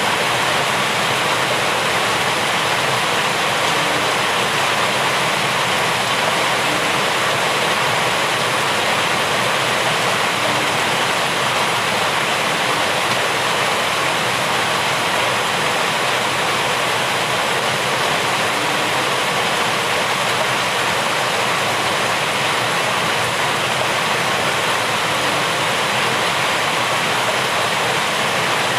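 Steady heavy rain falling, a continuous even hiss that holds at the same level throughout.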